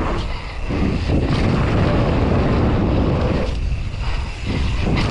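Wind rushing over the camera microphone together with mountain bike tyres rolling fast over a dirt trail, a loud steady rumble that thins briefly about three and a half seconds in.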